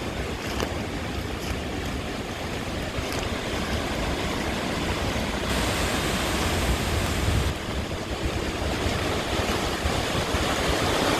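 Hurricane wind rushing steadily and buffeting the microphone, with a stronger, brighter stretch for about two seconds around the middle.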